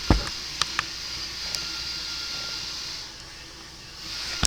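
A few light clicks, then a steady faint background hum and hiss.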